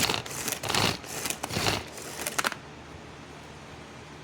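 Pull-cord manual food processor being yanked repeatedly, about two pulls a second, each pull spinning its blades through celery with a rasping whir. The pulling stops about two and a half seconds in.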